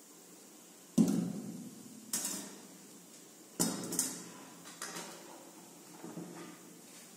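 Metal cookware clanking: a steel bowl and a metal karahi knocked and set down on a table. About six separate knocks, each with a short ring, the loudest about a second in and softer ones toward the end.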